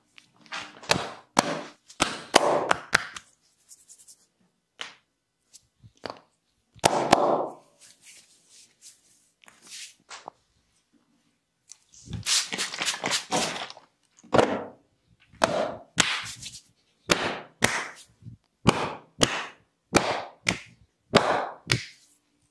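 Barber's hands slapping and snapping against a person's skin and hair in a close-up massage. The sharp cracks come in irregular clusters, with short scratchy rubbing bursts between them; the longest run is about halfway through.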